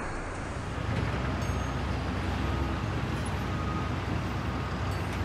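Steady low machinery rumble with a noisy hum on an assembly-hall floor, growing a little louder about a second in.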